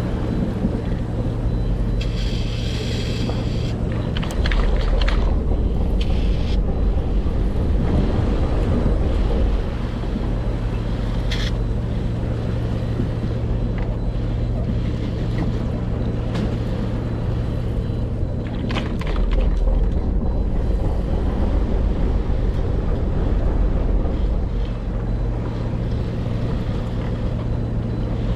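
Boat engine running steadily with a low hum, with wind on the microphone and a few brief knocks and rattles.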